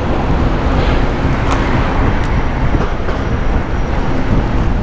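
Wind rushing over a helmet-mounted action camera while cycling in city traffic, a loud, steady low rumble. There is a single sharp click about a second and a half in, and four short, faint, very high-pitched beeps in the middle.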